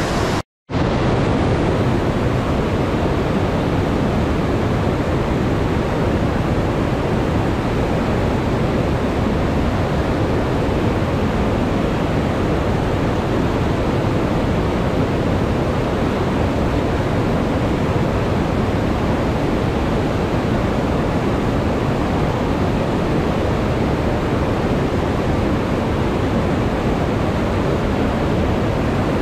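Steady rush of whitewater: a river pouring over a low dam spillway and churning through rocky rapids. The sound drops out completely for a moment about half a second in, then resumes unchanged.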